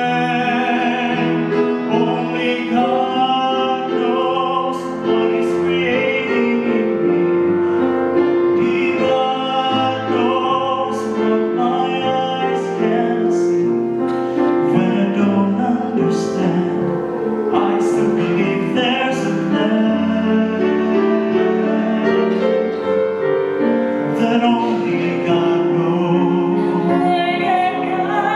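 A small vocal ensemble of men and a woman singing a song in harmony into microphones, several voices holding sustained notes together.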